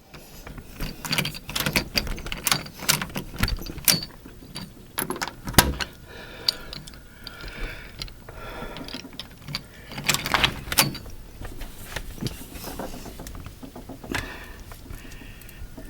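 Handling noises at a front door: irregular clicks and knocks with rustling in between, like locks and a latch being worked and keys jangling.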